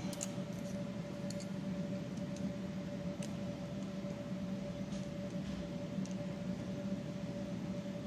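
Steady two-tone electrical or machine hum in the workshop, with a few faint, scattered clicks as a ratcheting wire crimper is handled.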